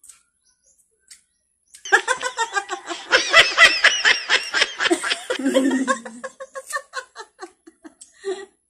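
Women laughing hard together, starting about two seconds in: fast, repeated high giggles that peak in the middle and then trail off into short, soft chuckles near the end.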